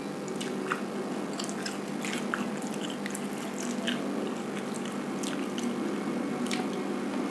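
A man chewing a mouthful of nasi uduk eaten by hand, with many small wet mouth clicks, over a steady low hum.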